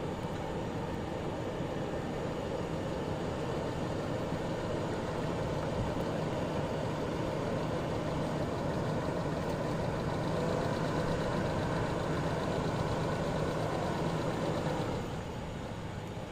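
A motor vehicle engine running steadily at low revs; it grows slightly louder and then drops off sharply about fifteen seconds in.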